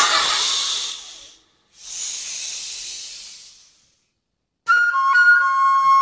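Two breathy hisses, each fading away, with a short break between them. After about a second of silence, flute music starts: a melody of held notes.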